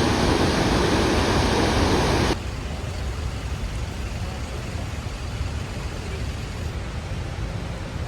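Steady rushing roar of Victoria Falls' falling water and spray. About two seconds in it cuts abruptly to a quieter, lower rush.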